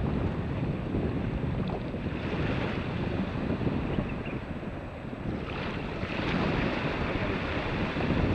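Wind buffeting the microphone over small waves washing on a sandy beach; the hiss of the wash grows louder a little past halfway through.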